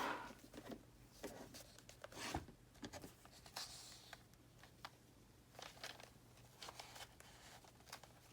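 Faint rustling and soft ticks of paper pages and thread being handled while a needle and thread are worked through the holes of a journal signature, over a faint steady low hum.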